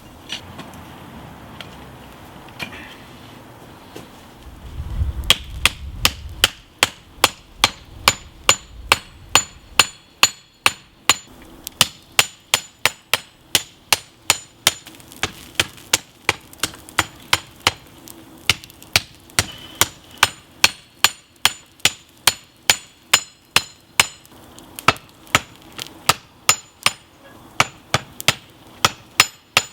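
Blacksmith's hand hammer forging hot lawn-mower-blade steel on an anvil: a steady run of blows at about two a second, each with a short metallic ring, broken by a few brief pauses. The strikes start about five seconds in, after a low rumble and hiss.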